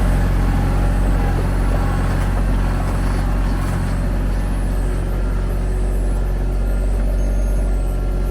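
TYM T313 sub-compact tractor's diesel engine running steadily.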